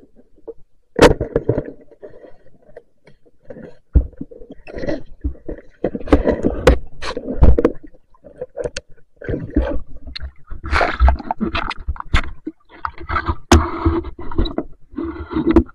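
Irregular splashing, scraping and knocking as a speared fish and the steel spear shaft are handled in shallow river water close to the camera. Sharp clicks and knocks are scattered among bursts of water noise.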